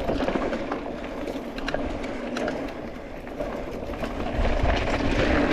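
Tyres rolling over a rough, loose trail surface, with the bike rattling and clicking over the bumps.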